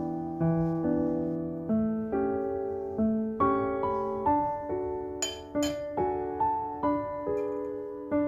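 Gentle background piano music, a new note or chord struck about every half second and left to fade.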